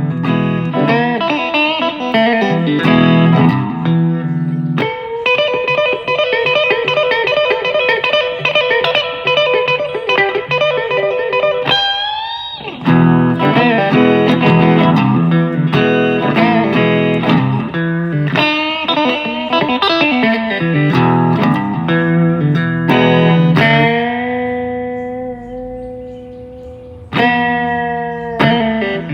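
Electric guitar, a Gibson Les Paul, playing blues lines with sustained notes and string bends. Near the end a held note rings out and fades before a new chord is struck.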